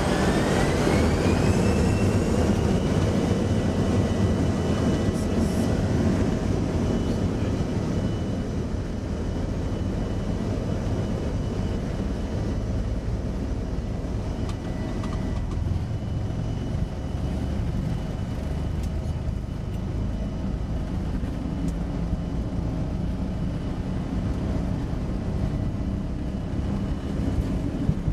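Embraer 170's General Electric CF34-8E turbofans spooling up to takeoff thrust: a whine rises over the first couple of seconds and then holds steady over the rumble of the takeoff roll, heard from inside the cockpit. A run of quick knocks from the wheels begins near the end.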